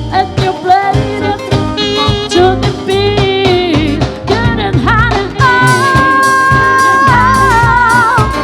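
A live band playing a song with a lead singer over bass and drums, amplified through a P.A. system; about five seconds in the singer holds one long note.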